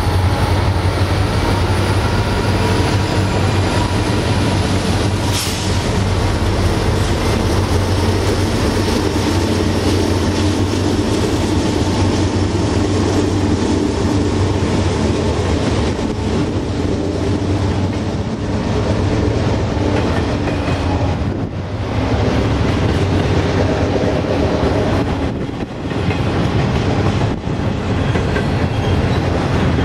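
A double-stack freight train passing close by: EMD SD40E diesel helper locomotives go past with a steady low engine drone, followed by container cars rolling by with the rumble and clatter of wheels on rail.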